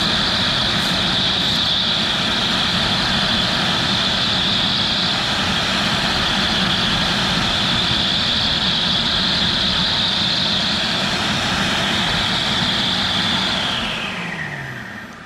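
CNC router spindle running at about 8,000 RPM while carving PVC, a steady high whine over the cutting noise. About fourteen seconds in, the whine falls in pitch and fades as the spindle spins down at the end of the job.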